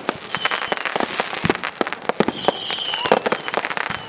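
Many consumer fireworks going off at once: a dense, irregular string of sharp bangs and crackles, with a brief shrill whistle about two and a half seconds in.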